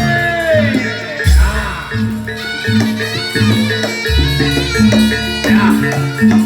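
Loud live accompaniment music for a Javanese barongan performance: a stepped melody over repeated low drum beats.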